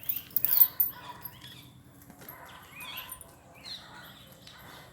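Birds chirping repeatedly in short rising and falling calls, with a few sharp clicks about half a second in.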